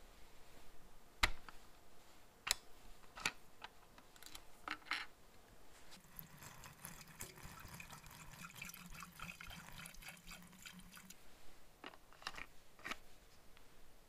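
Two-stroke fuel mix poured from a can through a plastic funnel into a chainsaw's fuel tank, running steadily for about five seconds in the middle. A few sharp clicks and knocks of handling come before and after.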